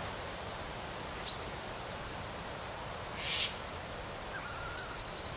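Siberian jay giving one short, harsh scolding call about three seconds in, mobbing a perched northern hawk owl, over quiet forest background with a few faint thin bird whistles.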